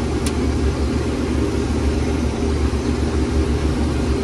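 Combine harvester running under load while harvesting corn, heard from inside the cab as a steady low drone. A single sharp click comes about a quarter second in.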